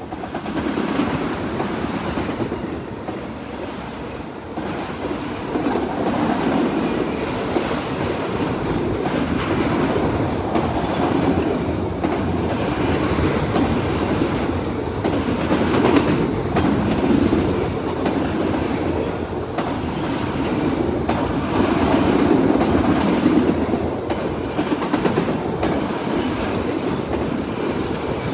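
Freight train cars rolling past on the CPKC main line: a steady rumble of steel wheels on rail, with many irregular clicks and clacks from the wheels.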